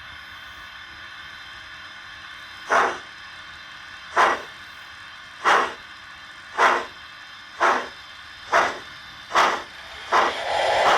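HO scale model steam locomotive's LokSound 5 sound decoder, through its speaker, playing exhaust chuffs as the locomotive starts off: after a quiet pause about three seconds in, eight sharp chuffs that come steadily quicker as it picks up speed.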